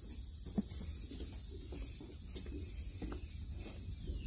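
Steady marsh ambience: a low rumble with a constant high hiss, and a couple of faint knocks.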